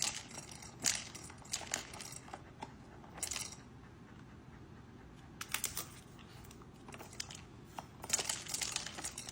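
Dog pawing and mouthing a plastic slot-machine-style kibble dispenser toy: irregular clicks and short rattles, in several bursts, the loudest near the end.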